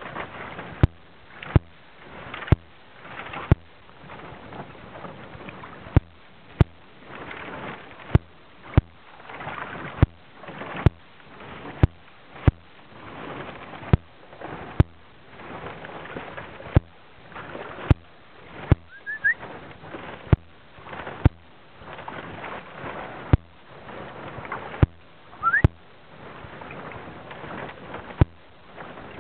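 Kayak being paddled: water swishing with each paddle stroke and a sharp knock roughly once a second. Two brief rising chirps come partway through.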